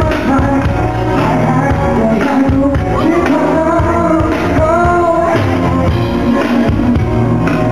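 Live performance of a pop song in a tango arrangement, a male voice singing over the band, played loud through a concert hall's sound system.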